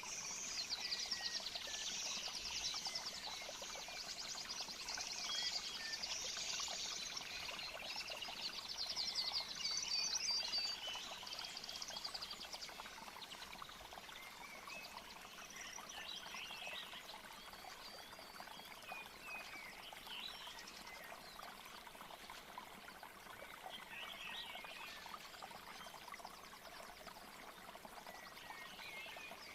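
Nature-sound recording: a steady trickle of flowing water under chirping and trilling animal calls. The high trills are busiest in roughly the first ten seconds, then give way to scattered short chirps.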